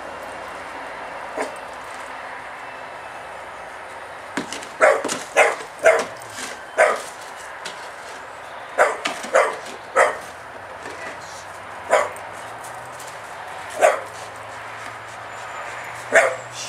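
Staffordshire Bull Terrier barking at a spade: about ten short, sharp single barks starting about five seconds in, spaced roughly half a second to two seconds apart.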